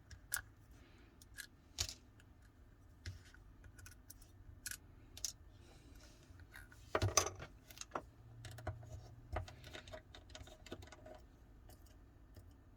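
Scattered small clicks and taps of hand tools and small parts being handled on a smartphone during disassembly, with a louder cluster of knocks about seven seconds in.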